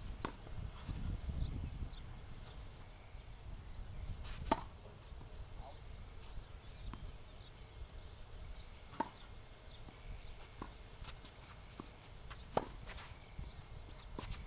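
Tennis ball struck by rackets during a rally: sharp pops a few seconds apart, with softer knocks of the ball bouncing on the court between them.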